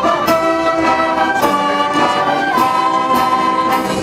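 Wind band playing: saxophones, flutes and brass with a sousaphone, in held notes that change every second or so.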